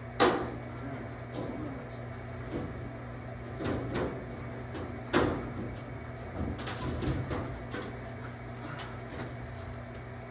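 Sheet-metal ductwork being handled and fitted overhead: a sharp knock just after the start and another about five seconds in, with lighter knocks and taps between, over a steady low hum.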